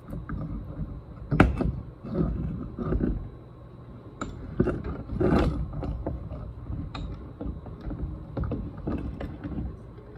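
Sandpaper rubbed by hand over a steel maul head held in a vise: irregular scraping strokes with scattered clicks and knocks, the sharpest about a second and a half in.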